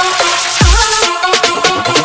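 Electronic dance background music: sustained synth notes over a deep kick drum whose pitch drops sharply.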